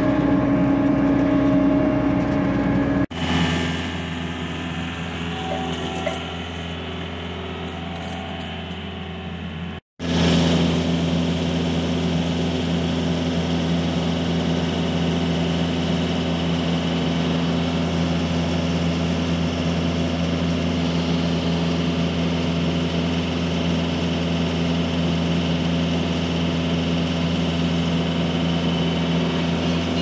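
Tracked skid-steer loader's engine running steadily while it powers an auger attachment drilling a pier hole. The sound drops in level about three seconds in, cuts out briefly near ten seconds, then the engine runs on steadily.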